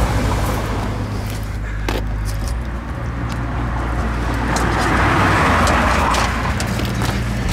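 Vehicle noise: a steady low engine hum, with a louder rushing swell about five seconds in, as of a car passing, and a few light clicks.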